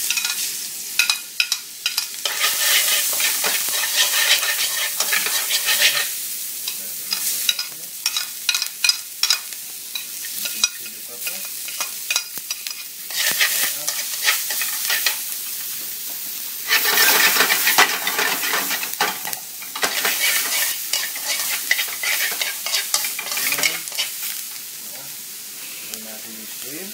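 Chopped garlic, bell pepper and chili stir-frying in hot oil in a metal wok. The oil sizzles loudly while tongs scrape and tap against the pan. The sizzle swells a couple of seconds in, when the peppers go in, and again about two-thirds of the way through.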